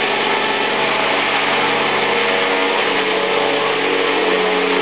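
Griffin 450 electric RC helicopter running on a stand: its motor whines and its main rotor spins, holding a steady speed.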